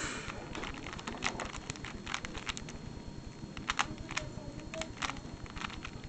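Plastic Rubik's Cube layers being turned rapidly by hand, giving an irregular run of sharp clicks and clacks.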